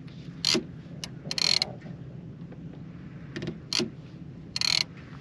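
A boat motor hums steadily under about half a dozen short mechanical clicks and rattles of fishing rods and reels being handled.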